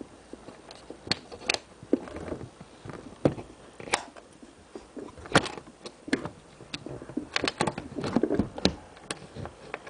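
Irregular plastic clicks and knocks from the bag-compartment lid of a Hoover Celebrity QS vacuum as it is pushed and worked shut. The lid is sitting crossways and not latching.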